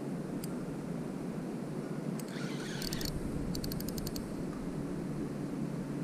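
Spinning reel being cranked during a lure retrieve, its gears running with a steady hum carried through the rod. A brief rustle comes a little past two seconds in, then a quick run of about eight small clicks.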